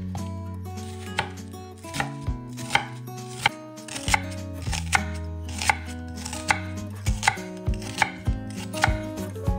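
Knife chopping on a cutting board in slow, uneven strokes about once or twice a second, coming quicker near the end, over background music with held notes.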